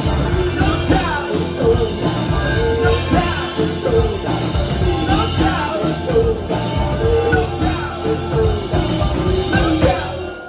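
Alt-country band playing live and loud, with singing over strummed strings and a driving rhythm, closing the song with a sudden stop at the very end.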